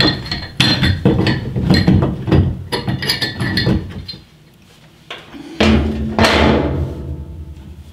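Pipe wrench clicking and knocking against a washer-hose connector as it is worked on a fitting seized by mineral buildup, a rapid run of sharp metallic knocks over the first four seconds. A longer, louder noisy sound follows about five and a half seconds in and fades out.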